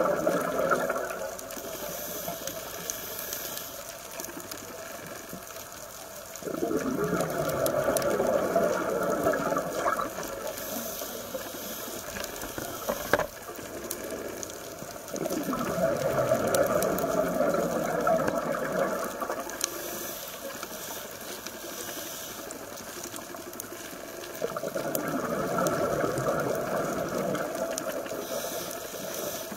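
A scuba diver breathing slowly through a regulator: exhaled bubbles rush and gurgle in three long bursts of about four seconds each, roughly nine seconds apart, with a quieter hiss between them. There is one sharp click about halfway through.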